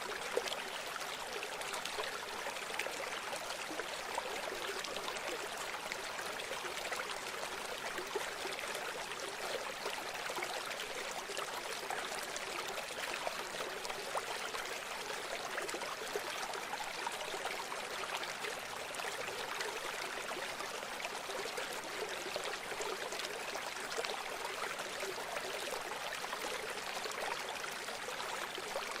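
River water flowing: a steady, unbroken rush of running water, mostly in the middle and upper range with little deep rumble.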